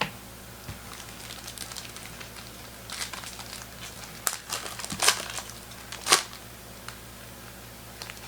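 Plastic crinkling and rustling as trading cards are handled: irregular short crackles, a few sharper clicks about five and six seconds in.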